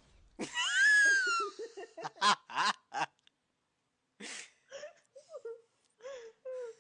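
A person's wheezing laugh: a loud, high-pitched squeal first, then a few short breathy bursts, and after a pause quieter, lower giggles.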